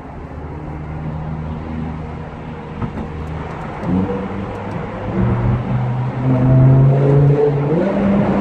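BMW M6's V10 engine running under load, its note stepping up and down in pitch and growing steadily louder, with a climb in revs near the end.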